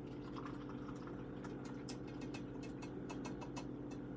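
Butter crackling and sizzling in a hot frying pan under grilled cheese sandwiches: scattered, irregular faint ticks over a steady low hum.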